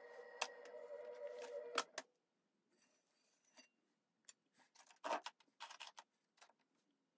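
Electric potter's wheel motor whining steadily, then cutting off about two seconds in. After that come scattered faint clicks and scrapes of handling at the wheel.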